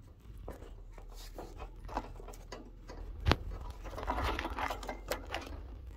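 Irregular scratching and rustling of zebra finches shuffling in seed husks and nesting material on a wire cage floor, busiest in the second half, with one sharp click about three seconds in.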